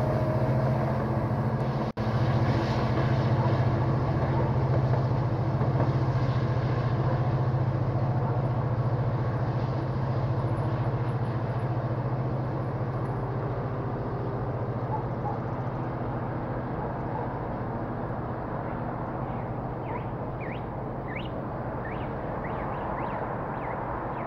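Vossloh Euro 3200 diesel-electric locomotive's twelve-cylinder EMD 710 engine pulling a passenger train away under power: a steady low drone that slowly fades as the train draws off into the distance.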